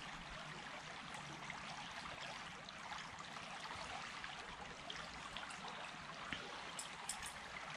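Faint, steady rush of flowing stream water, with a few small ticks near the end.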